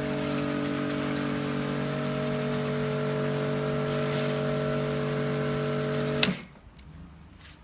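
Kärcher K4 electric pressure washer running, its motor humming steadily under the hiss of the water jet, then cutting off suddenly about six seconds in.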